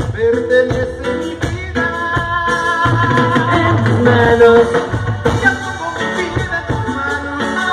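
A live Latin dance band plays through the PA: a saxophone section holds harmonised notes over bass, drums and keyboards.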